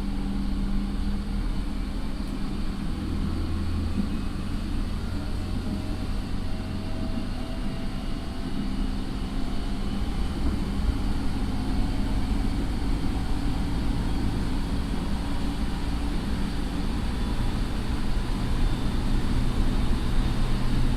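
JR 209 series electric train car, refitted with a Mitsubishi IGBT inverter and MT68 traction motors, running on the line, heard from inside the car: a steady low hum with wheel-and-rail running noise, faint tones rising a little in pitch midway, and getting somewhat louder near the end.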